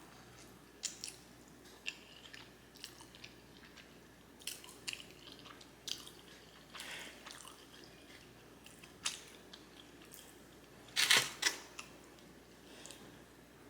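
Chewing a mouthful of black bean noodles in thick sauce: soft, scattered wet mouth clicks and smacks, with a louder burst about eleven seconds in.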